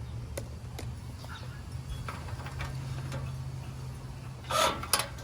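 Light scattered clicks and ticks of metal parts being handled as a propane hose fitting is screwed onto a portable multi-fuel camping burner, with a louder short scrape near the end. A low steady hum sits underneath.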